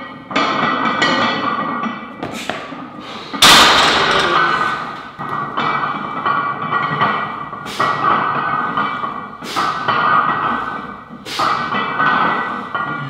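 Background music of struck, ringing notes that fade out one after another every second or two, with one heavy hit about three and a half seconds in.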